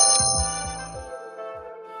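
A bright, bell-like chime sounds at the start and fades away over about a second and a half: a sound effect marking the answer reveal. It plays over light background music.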